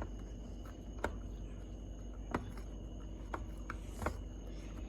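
Light, separate clicks and taps, about five in all, as a screwdriver works the small screws out of a plastic Nerf blaster's shell, over a steady low hum.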